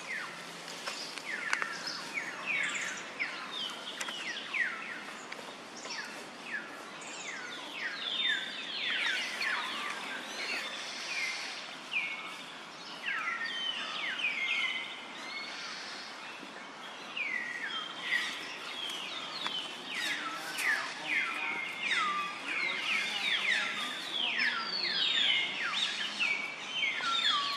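Birds chirping: many short, falling chirps overlapping one another, over a steady outdoor background.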